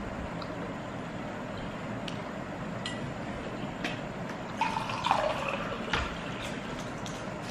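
Clear plastic being handled: a brief rustling with a few clicks, about four and a half to six seconds in, over a steady background hum.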